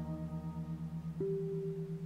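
Binaural-beat meditation tones: a low tone pulsing about six times a second under sustained, ringing singing-bowl-like tones. A little past a second in, a new, clearer, higher tone comes in as the deep drone underneath drops out.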